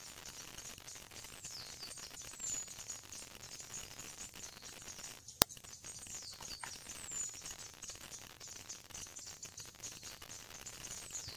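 Outdoor ambience of birds calling, with pairs of short falling chirps every few seconds over a steady high hiss. A single sharp click sounds about halfway through.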